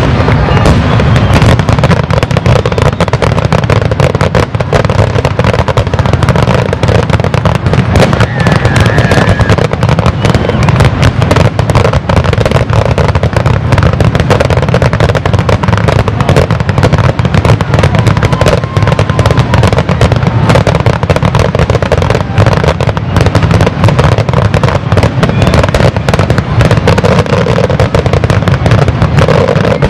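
Aerial fireworks display: a loud, unbroken barrage of shell bursts booming and crackling, many overlapping with no pause between them.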